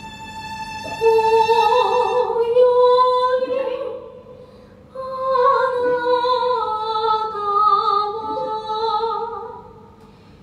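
A woman singing a slow song with vibrato, accompanied by violin. The violin holds a steady note, the voice enters about a second in, and two sung phrases follow with a short breath between them near the middle, fading near the end.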